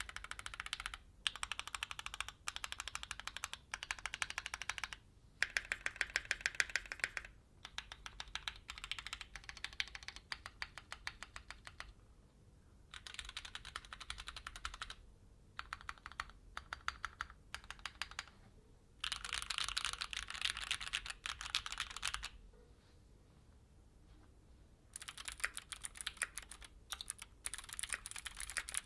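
Keychron Q6 full-size aluminium mechanical keyboard being typed on fast, in runs of rapid keystrokes a few seconds long, broken by short pauses and one longer pause about two-thirds of the way through.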